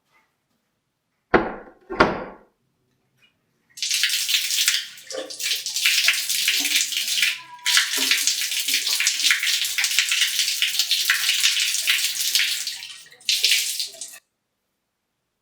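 Two thumps, then water running steadily for about ten seconds, breaking off briefly about halfway through.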